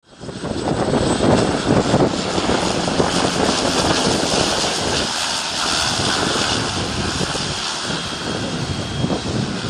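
Airplane engines running loud, a dense steady roar with a strong high hiss over a low rumble, fading in over the first half second.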